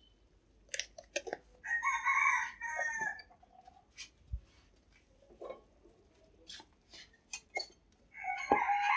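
A rooster crowing twice, once about two seconds in and again near the end, over scattered clinks and knocks of a metal pot and ladle being handled.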